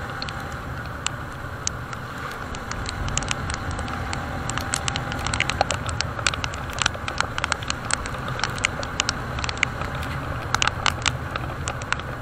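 Rain drops striking close to the microphone as sharp, irregular pattering hits, growing denser after the first few seconds, over the steady running of a motorcycle with wind and road noise.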